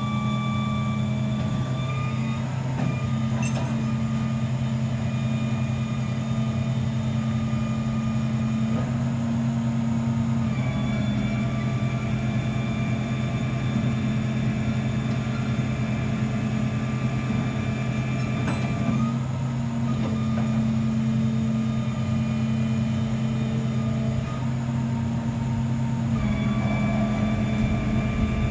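Machine running steadily: a low hum with higher whining tones that shift slightly a few times.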